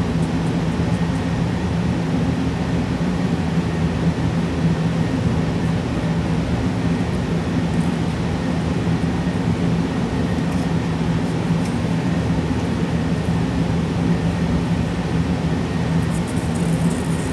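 A steady machine hum, an unbroken drone with a strong low tone, with a few faint light ticks near the end.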